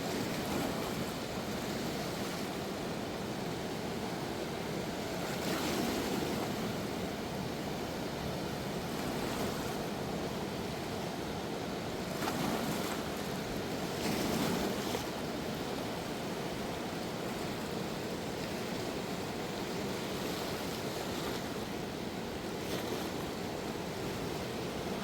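Rushing water of a fast, flood-swollen river, a steady rush that swells louder a few times.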